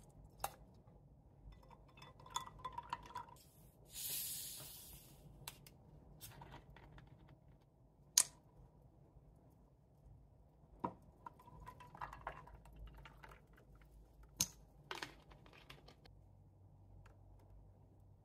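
Faint sounds of a drink being mixed: liquid poured over ice in a glass, a short hiss about four seconds in from a sparkling-water bottle being opened, and a few sharp clinks of glass and ice.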